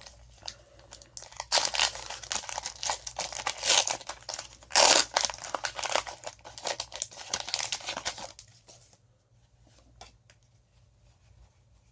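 Foil booster pack wrapper of a Pokémon trading card pack crinkling and being torn open, loudest about five seconds in. The rustling stops after about eight seconds, leaving only a few faint ticks.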